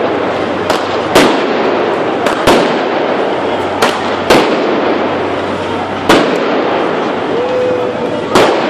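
Fireworks going off in a street, about eight sharp bangs at irregular intervals, some in quick pairs, over a steady loud din.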